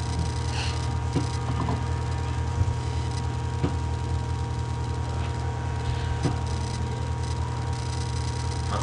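Steady electrical hum on the recording, with a faint steady whine above it and a few faint clicks.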